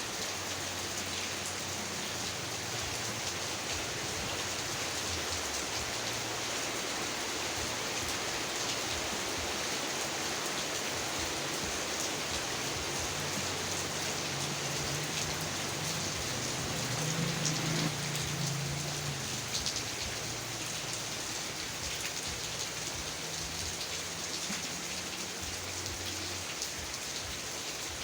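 Heavy rain falling steadily, an even hiss of countless drops. A low rumble swells briefly about two-thirds of the way through.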